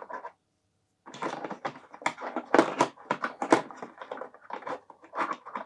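Plastic board-game miniatures and their packaging being handled: a quick, uneven series of clicks, taps and rustles starting about a second in.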